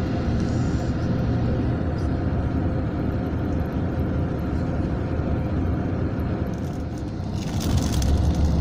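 Mercedes-Benz O500 RSD coach heard from inside the cabin, its diesel engine running with a steady low rumble as the bus moves slowly. Near the end a louder hiss joins in.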